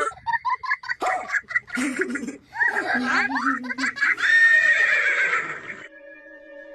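Exaggerated comic vocal sounds, laugh-like and animal-like cries in quick stuttering bursts and swooping glides, standing in for the man's 'dangerous' cough. Near the end a few steady music tones come in.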